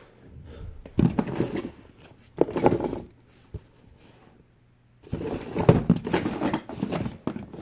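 Plastic fidget toys rattling and knocking as they are handled and moved about by hand, in several bursts of clatter with a short lull around the middle and a longer, busier stretch near the end.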